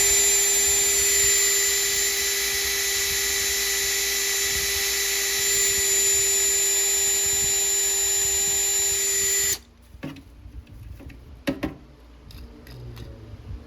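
Electric drill with a 5/32-inch metal bit running at a steady speed, drilling out the center post of a 1/64-scale die-cast car to free its wheels. The whine stops abruptly about nine and a half seconds in, followed by a few light clicks and taps.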